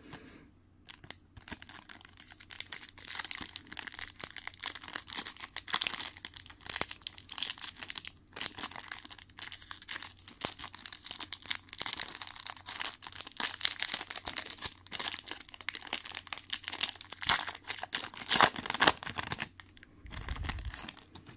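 Shiny foil wrapper of a Topps Chrome UFC trading-card pack crinkling and tearing as it is ripped open and peeled back by hand: a long run of sharp crackles with short pauses.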